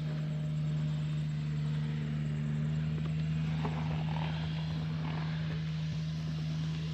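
An engine running steadily at an even pitch, a constant hum with no change in speed.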